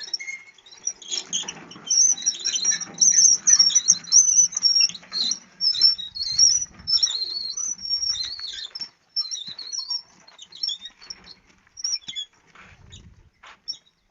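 Small birds chirping in a rapid, busy chatter, loudest in the first half and thinning out after about ten seconds. A few light knocks sound near the end.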